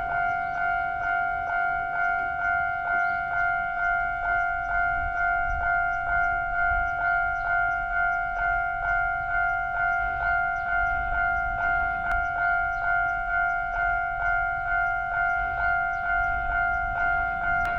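Japanese railroad crossing warning alarm ringing at an even rhythm of about two strikes a second, each strike on the same two pitches.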